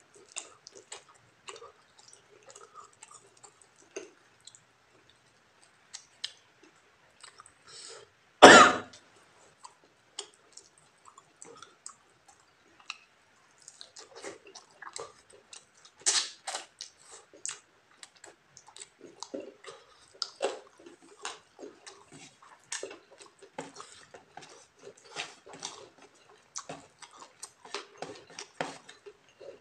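Close-miked wet chewing and lip-smacking as chicken and rice are eaten by hand, in a stream of short smacks that grows denser in the second half. About eight seconds in comes a single loud, short cough-like burst.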